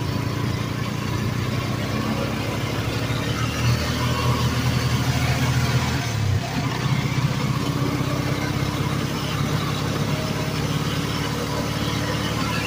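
Auto-rickshaw engine running at road speed, heard from inside the cab as a steady low drone with road noise. The engine note swells about four seconds in and dips briefly just after six seconds.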